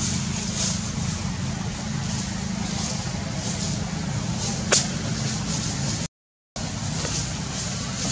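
Steady low outdoor rumble with a hiss above it, broken by one sharp click a little past halfway. The sound cuts out completely for about half a second near the end.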